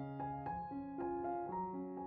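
Background piano music, a new note or chord struck about every half second and ringing on.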